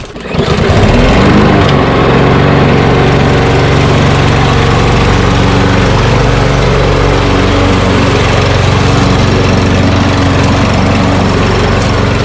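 Lawnmower engine starting about half a second in, briefly rising in pitch, then running steadily at a constant speed.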